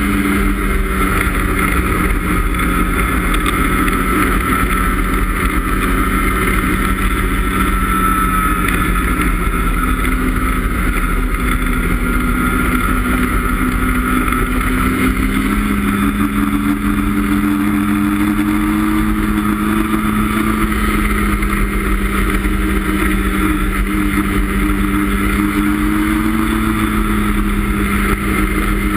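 2017 Ski-Doo MXZ X snowmobile's 850 E-TEC two-stroke twin running steadily at trail speed. The engine pitch rises about halfway through and then climbs gently.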